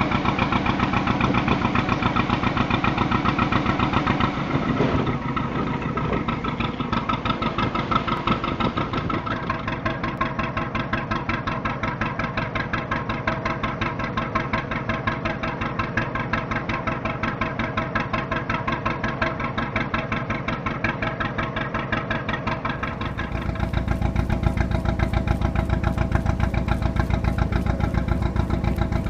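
Narrowboat's two-cylinder National 2DM diesel engine running with a steady, even beat.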